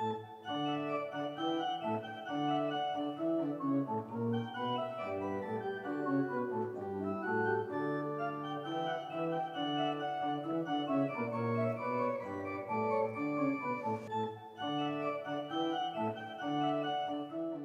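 Organ music playing held chords that change in steps, dying away near the end.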